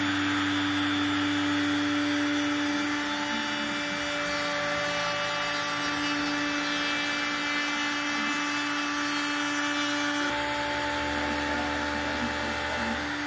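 Makita router spindle on a CNC machine spinning a surfacing bit while skimming an MDF waste board: a steady high whine over the hiss of cutting and a running dust extractor. The low hum shifts about ten seconds in as the gantry moves on.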